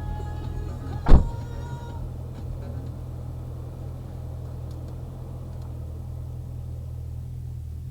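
Steady low exhaust drone of a VE Commodore SS V's 6.0-litre V8 running with its rear mufflers removed and replaced by straight pipe, heard inside the cabin. A single sharp, loud thump about a second in, and radio music fading out in the first two seconds.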